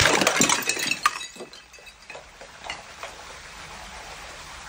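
Large glass bottle full of liquid shattering on concrete steps: a loud crash, then shards clinking and skittering down the stairs, with one sharp clink about a second in. The clinks die away after about three seconds.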